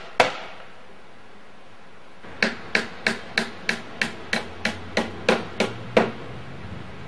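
Hammer driving nails into wooden boards: one blow just after the start, a pause of about two seconds, then a run of about a dozen quick blows at about three a second, the last one the hardest.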